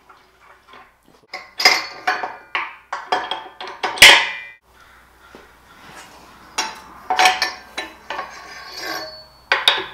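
Steel pins and die parts of a JD2 M3 tube bender clanking and clinking, metal on metal, as they are pulled and worked loose to free a freshly bent tube. Irregular knocks with a short ring, in clusters, the loudest about four seconds in.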